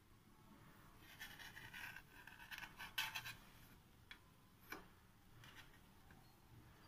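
Faint scraping of a small knife sawing through the crust of a bread slice on a steel plate, with two sharp clicks, about 3 s and 5 s in.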